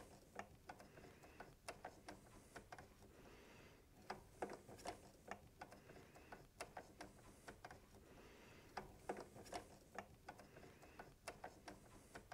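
Faint, irregular metallic clicks and ticks in small clusters from a hex screwdriver turning out the small centre screws that hold a drone propeller hub to its motor.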